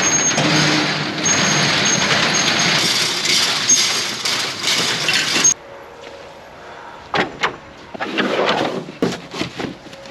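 A vehicle running with steady road and engine noise, which stops abruptly about halfway through. It is followed by a quieter stretch with a few sharp knocks and clicks.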